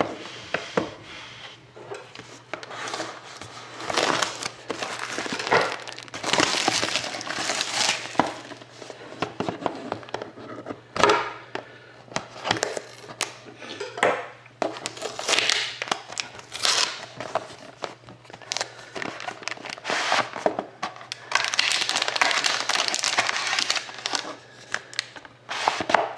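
Plastic shrink-wrap being torn and peeled off a cardboard box, crinkling and crackling in irregular bursts, with a sharper crack about eleven seconds in.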